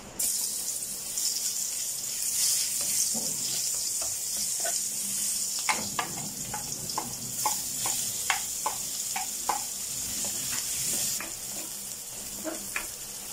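Chopped garlic dropped into hot cooking oil in a wok, sizzling loudly as soon as it hits, the start of a sauté. From about halfway in, a spoon clicks and scrapes repeatedly as more garlic is pushed off a plate and stirred through the pan.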